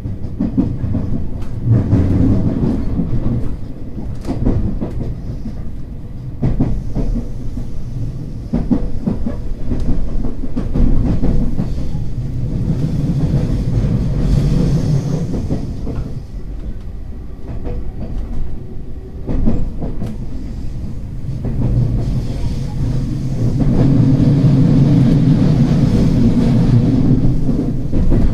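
Running sound inside a JR West 225-series 100-subseries electric train: a steady low rumble of wheels on rail, with scattered clicks from rail joints, swelling louder twice.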